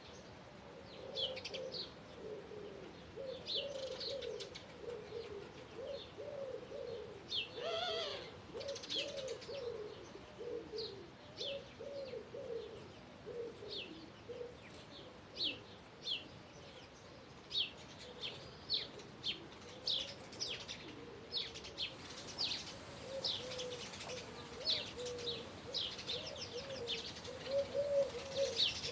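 Birdsong: many short, quick high chirps throughout, over a low, wavering cooing call that repeats over and over.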